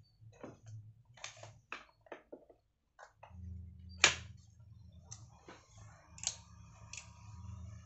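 A few light clicks, then a low steady hum that sets in about three seconds in as a FUTON 1500 class D amplifier board is powered up. About a second later comes one sharp, loud click, crisp ('cetik'): the amplifier's relay clicking in as it starts.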